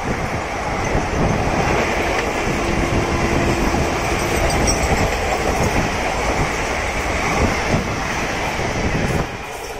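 Blue ICF passenger coaches of an express train rushing past at speed, a steady roar with wheels clattering over the rail joints. The sound drops off near the end as the last coach, a luggage van, goes by.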